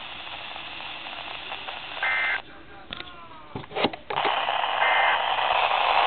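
NOAA weather radio receiver playing the Emergency Alert System's digital data bursts, a short buzzy two-tone squeal about two seconds in and a fainter one near five seconds. They come over radio hiss that swells into loud static after about four seconds.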